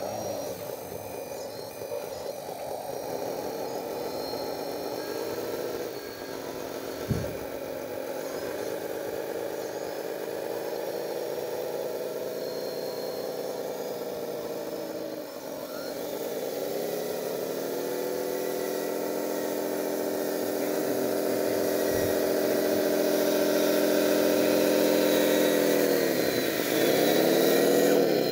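Radio-controlled model bulldozer running, a steady mechanical whine that climbs in pitch about halfway through and dips twice near the end as it slows and picks up again. There is a short knock about seven seconds in.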